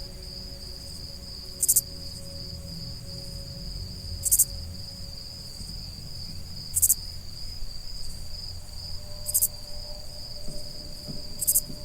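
Insects trilling: a steady high-pitched drone with a short, sharper, very high chirp about every two and a half seconds, over a low rumble.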